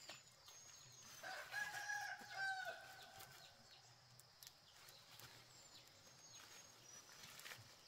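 A rooster crowing once, starting about a second in and lasting about a second and a half.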